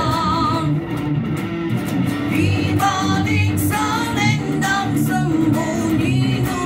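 A man singing a slow melody, accompanied by a solo electric guitar.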